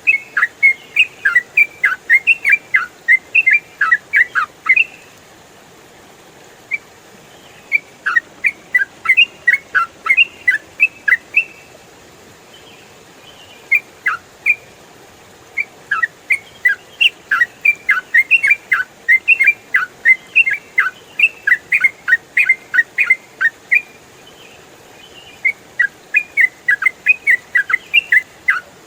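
Yellow-vented bulbul singing rapid runs of short, falling whistled notes, in several bursts of a few seconds separated by short pauses.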